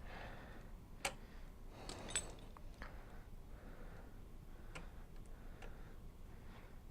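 Faint, irregular light clicks and taps, a few sharper ones about one and two seconds in, as of small metal parts and tools being handled.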